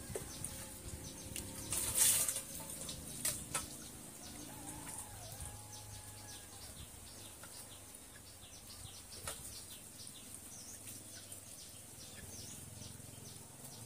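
Water splashing from a basin about two seconds in, followed by a couple of sharp knocks, over a steady high insect drone and many short chirps.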